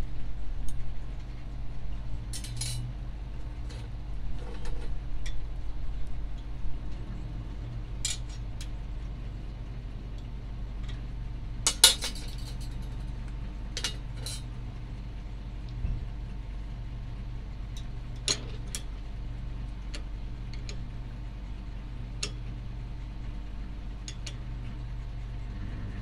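Scattered sharp metallic clinks and taps of thin stainless steel rod being handled and bent by hand, the loudest about twelve seconds in, over a steady low hum.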